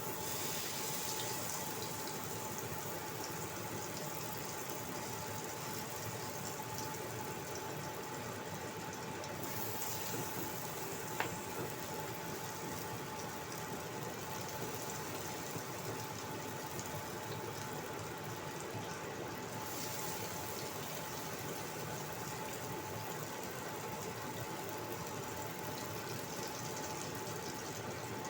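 Cooking oil sizzling steadily in a wok, with a faint steady hum underneath and a single sharp click about eleven seconds in.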